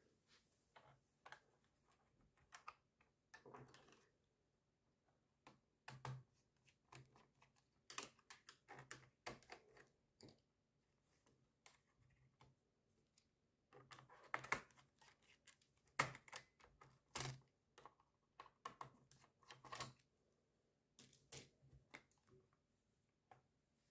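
Plastic clicks, snaps and light knocks of a Gateway laptop's bottom access cover being pried loose with a plastic tool and lifted off, in irregular clusters.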